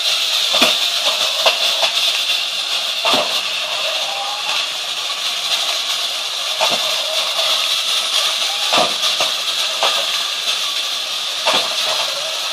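Small electric motors of battery toy trains and a radio-controlled toy car whirring steadily and high-pitched, with scattered sharp clicks and knocks.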